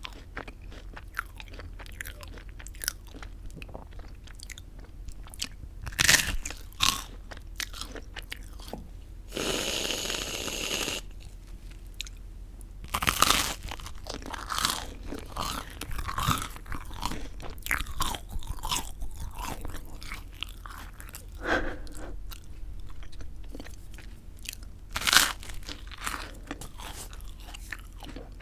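Close-miked bites and chewing of crisp toasted bread with whipped cream, a run of sharp crunches with several loud bites. About ten seconds in there is a steady hiss lasting about a second and a half.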